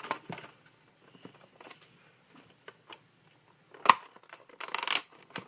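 Small cardboard candy-toy box being opened by hand: scattered light taps and rustles, a sharp click just before four seconds in, then a brief rustle of packaging.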